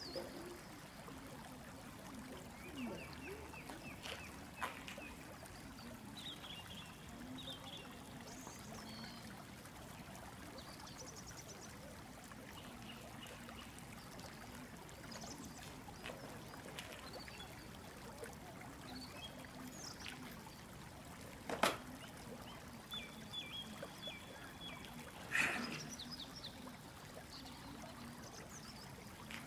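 Quiet outdoor ambience: birds chirp and trill now and then over a steady faint hiss, with two sharp knocks a few seconds apart in the last third.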